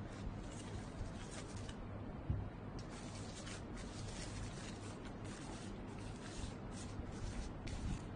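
Thin cassava-based bioplastic bag rustling and crinkling as it is handled and spread out, with one sharp knock about two seconds in as a small brass object is set down on the wooden table.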